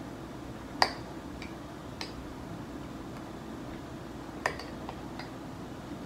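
A few light, sharp clicks and taps of a metal serving spoon against dishes and food while tomatoes are spooned onto a roll, the loudest a little under a second in and again about four and a half seconds in, over a faint steady hum.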